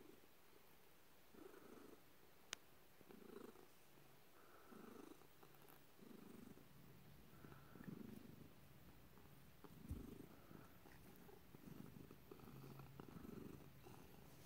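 A cat purring softly, in slow swells about every second and a half as it breathes in and out. A light click sounds a couple of seconds in, and a soft bump sounds later.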